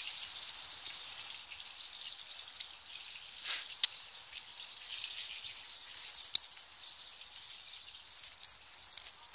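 A steady, high-pitched outdoor insect chorus, with a few sharp clicks and ticks on top, the loudest about six seconds in.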